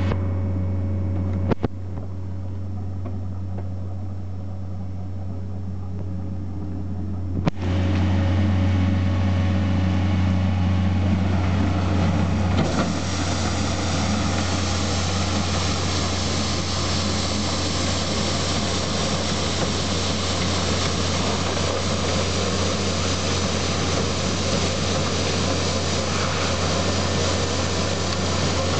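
Skid steer engine running steadily. Two sharp clicks come early, the second as the machine gets louder about seven seconds in, and a little before halfway a loud, steady hiss joins the engine and runs on.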